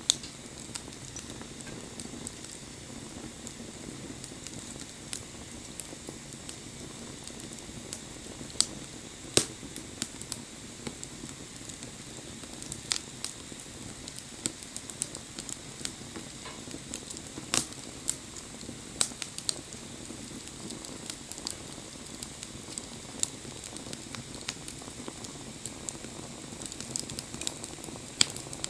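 Wood fire burning, with a steady low hiss and scattered sharp crackles and pops, the loudest about 9 and 17 seconds in.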